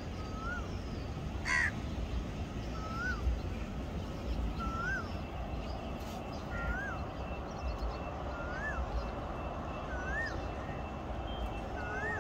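A bird calling over and over: a single whistled note that rises and falls, repeated about every two seconds, over a steady low rumble.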